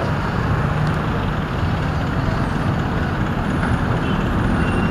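Steady roadside traffic noise, with a large vehicle's engine running close by as a low, even hum.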